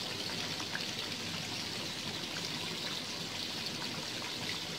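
Flour-coated silken tofu deep-frying in hot oil: a steady sizzle and bubbling with a few faint pops.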